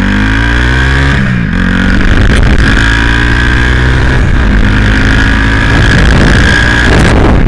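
Turbocharged Honda Titan 160 single-cylinder engine running through an open downpipe: it revs up in the first second, drops back, then is held at raised revs with small rises and falls. A steady high whistle runs over the exhaust note.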